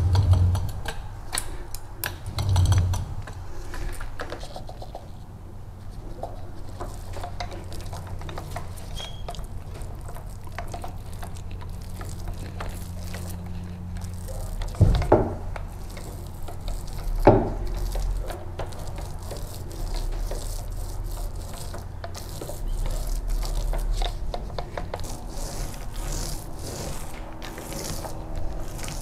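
Texturing roller working wet primer on a boat's cockpit floor to raise a non-skid texture, with many small scattered clicks over a steady low hum, and two sharp knocks about halfway through.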